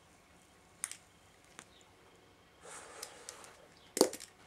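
Lighting up a smoke with a lighter: a couple of faint clicks, a breathy draw of smoke about three seconds in, and a sharp click near the end.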